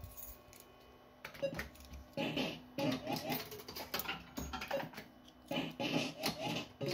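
Barcrest Alphabet fruit machine in play: from about a second in, its reels spin and clunk to a stop in repeated bursts of mechanical clicking, mixed with the machine's short electronic bleeps.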